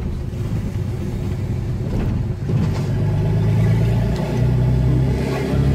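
Dodge Ram 2500's Cummins turbo-diesel engine heard from inside the cab as the truck drives along, the engine note rising as it accelerates about halfway in and stepping once more a little later.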